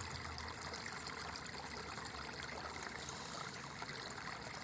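River water trickling and running steadily.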